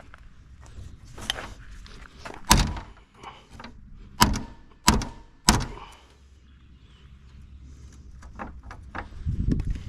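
Sharp metal knocks and clanks as a bent metal plate on a stump grinder is worked back into shape: four loud knocks in the middle, lighter knocks around them, and a low rumble near the end.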